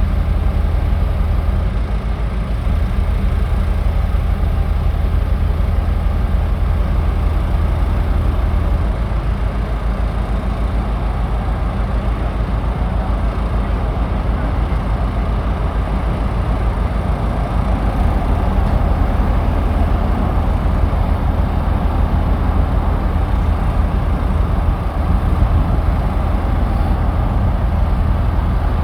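A large engine running steadily with a low, even rumble.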